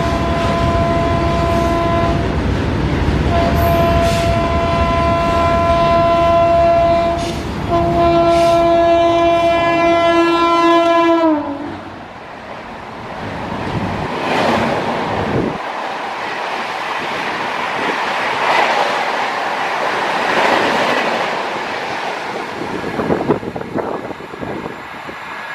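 A high-speed express train passes, its locomotive horn sounding three long blasts. The last blast drops in pitch as the locomotive goes by. The coaches then rush past in a loud noise of wheels on rails that slowly fades.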